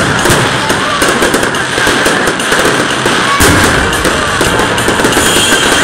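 Aerial fireworks display: shells bursting with bangs and crackles in quick succession, with a heavier bang about three and a half seconds in.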